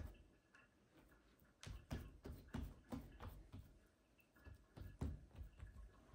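Faint soft taps and thuds of hands patting and pressing a folded sheet of yeast dough flat on a wooden table. A cluster of them comes a second and a half to three seconds in, and another comes near the end.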